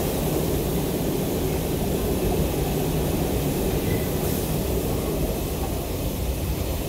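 Steady rumble and hiss of an R142 subway car running along the track, heard from inside the car.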